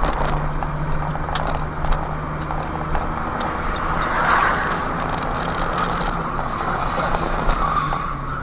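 Steady engine and road noise of a car in motion, with scattered light clicks.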